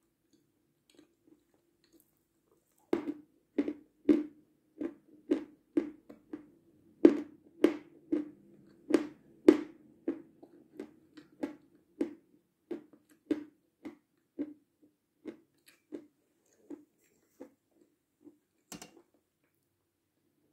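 A person chewing crisp meringue: a run of dry crunches, about one and a half a second, starting a few seconds in, loudest at first and growing fainter as the mouthful breaks down.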